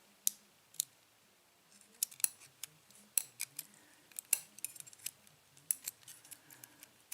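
Light, sharp metallic clicks and taps, irregular and scattered, from small lock pins and parts being handled and set down with a metal tool while a pin-tumbler lock is disassembled. The clicks pause briefly about a second in, then come thicker.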